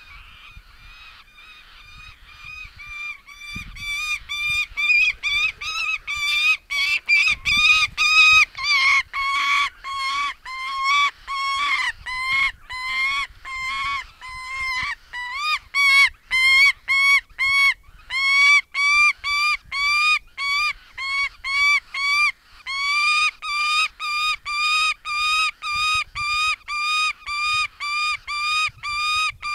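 Female saker falcon calling loudly and repeatedly, about two harsh calls a second, while she holds prey the male has brought to the nest. The calls are fainter at first and grow loud within the first few seconds.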